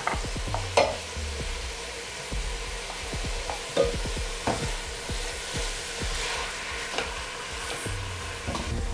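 Ground beef sizzling as it browns in a stainless steel pot, stirred and broken apart with a slotted spoon that scrapes along the pot, with several sharper knocks of the spoon against the pot.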